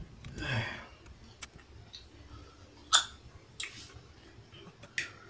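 Close-up eating sounds from someone eating spicy fried instant noodles: short breathy noises and a few sharp clicks, the loudest click about three seconds in.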